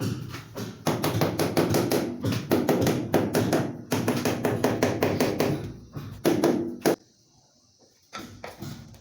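Rapid tapping on wall tile, several knocks a second with a low ringing, as the tile is tapped into its bed. The knocking breaks off abruptly about seven seconds in, then resumes about a second later.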